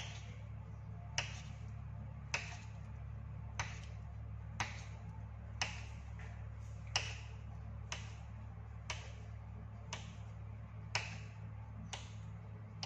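A blade tapping down onto a stone countertop about once a second as bread dough is cut into pieces, over a steady low hum.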